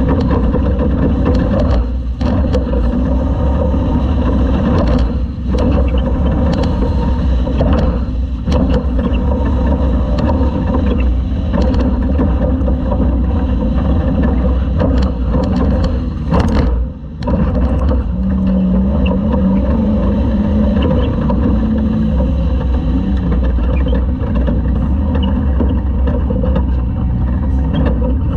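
Toyota Class 2000 off-road race truck's engine running loud and continuous, heard from inside the cab, with brief dips in level about 2, 5, 8 and 17 seconds in.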